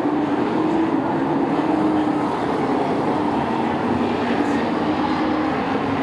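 Engines of a field of short-track race trucks running on the oval, a steady drone with no break.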